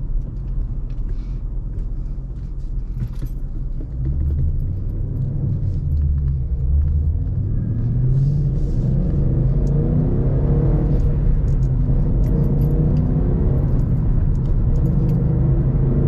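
2014 Ford Mustang GT's 5.0-litre V8 accelerating through a short pull. The engine gets louder about four seconds in, rises in pitch as the revs climb, then holds loud.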